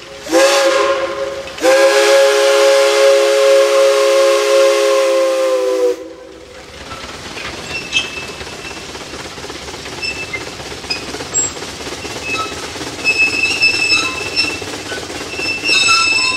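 Steam whistle of a replica Type A vertical-boiler Climax geared logging locomotive: a short blast, then a long blast of about four seconds that cuts off suddenly. After it comes the rumble of the locomotive and log cars rolling past, with metallic clinks and brief high squeals.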